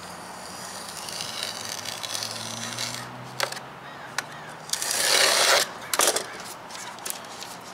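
A razor blade knife slicing and scraping along the edge of iron-on birch edge banding, trimming off the overhang from a wooden cabinet door. A single loud scrape about five seconds in is the loudest sound, with a few sharp clicks around it.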